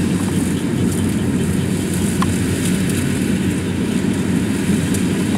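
Kubota DC-70 combine harvester's diesel engine running steadily under load while it cuts lodged rice.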